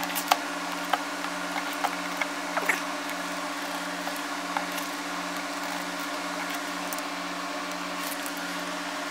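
Small ticks and light scratching of a metal pick lifting and peeling laser-cut masking tape off plywood, most of them in the first few seconds, over a steady two-tone hum.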